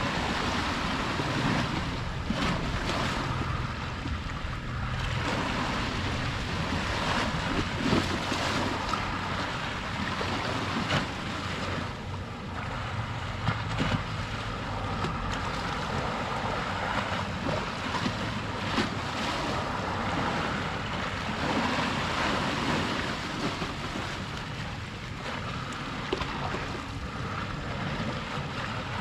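Sea waves washing and splashing at the shore in a steady wash of surf, with wind buffeting the microphone as a low rumble.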